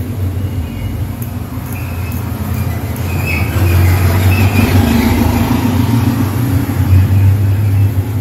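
A steady low mechanical rumble, like a heavy engine running, that grows louder about three and a half seconds in.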